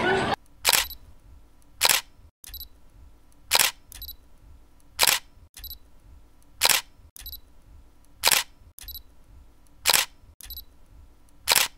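Camera-shutter click sound effect repeating about eight times, roughly every one and a half seconds, most clicks followed by a fainter second click.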